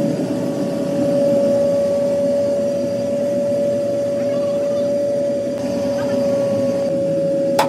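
Electric air blower feeding a foundry furnace, running steadily as a constant high hum over a low roar. A single sharp knock comes near the end.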